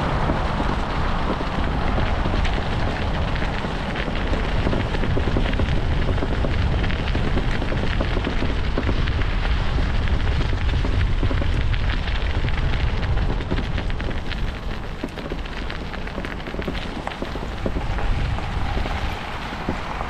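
Wind buffeting the microphone of a camera on a moving bicycle, a steady low rumble with dense crackling through it.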